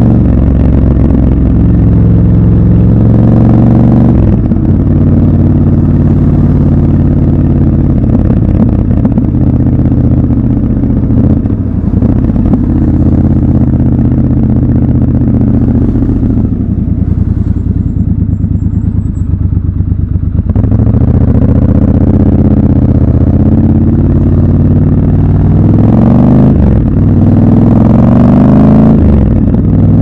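Triumph Scrambler 1200 XC's 1200 cc parallel-twin engine and exhaust under way: it pulls up through the revs in the first few seconds, then holds a steady cruise. A little past halfway it drops to low revs for a few seconds, then accelerates again in steps, rising with each gear, near the end.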